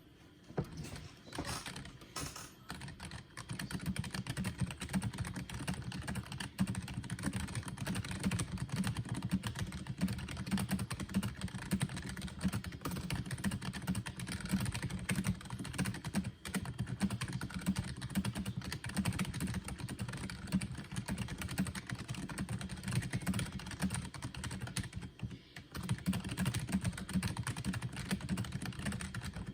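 SteelSeries Apex 3 membrane gaming keyboard being typed on fast, around 100 words a minute, a dense run of key presses with a twang that the keyboard does not have in the room. The typing is lighter for the first few seconds and pauses briefly twice.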